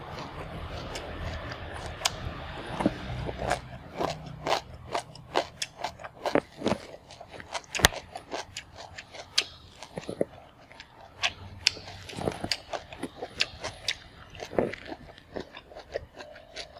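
Close-up chewing and crunching of raw cucumber slices, with many irregular crisp crunches and wet mouth clicks in quick succession.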